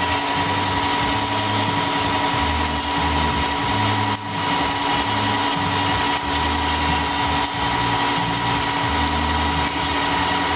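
Amada H-250-SA horizontal bandsaw running with a steady hum and whine while its blade is fed very slowly down into the stock under hydraulic control, with an uneven low rumble coming and going.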